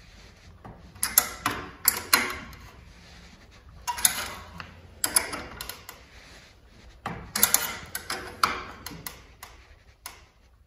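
Steel combination wrench clicking and clinking against nuts on a bolt in short irregular bursts every second or two as it is fitted, turned and repositioned. The nuts are being forced down to crush and set a threaded rivet nut in thin sheet steel.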